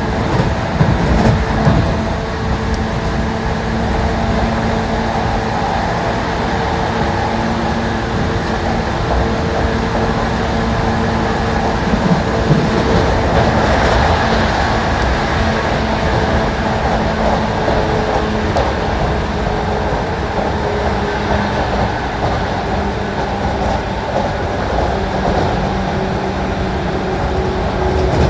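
A JR 185 series electric train running along the line: a steady rumble of wheels on rail, with a continuous hum of several steady tones.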